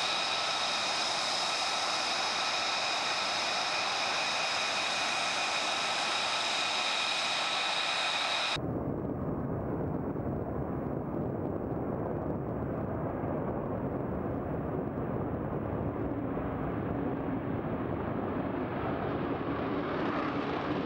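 F-35 Lightning II jet engine noise. A steady whine with several high tones over a hiss gives way abruptly, about eight and a half seconds in, to a deep rumble of jet thrust that grows brighter and louder near the end, as the jet comes closer.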